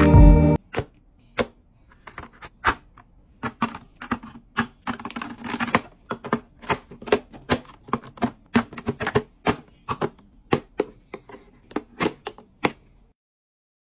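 Makeup compacts, lipsticks and plastic tubes clicking and tapping against clear acrylic organizer trays as they are set into a drawer one after another: a quick, irregular run of short, sharp clicks.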